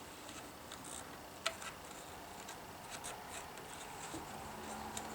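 Box cutter blade slicing through a high-temperature rubber hose: faint scraping cuts with scattered sharp clicks, the loudest about one and a half seconds in.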